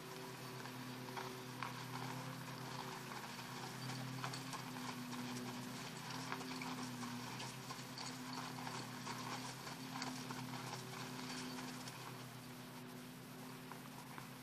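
Hoofbeats of an American Paint Horse mare walking on sand arena footing, with a steady low hum underneath.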